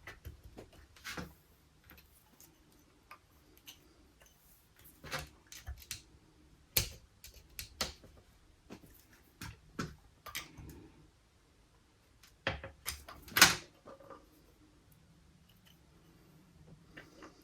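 Irregular sharp metal clicks and knocks as a circlip is worked into the bore of a motorcycle brake master cylinder, the clip slipping and refusing to seat. The loudest knocks come about 13 seconds in, followed by a few quiet seconds.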